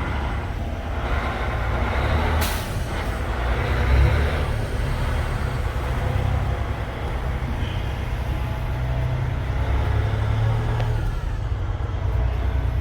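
Cummins ISX heavy-truck diesel engine running steadily at idle with a deep, even rumble, apparently on its newly installed fuel pump. A brief sharp hiss or click cuts in about two and a half seconds in.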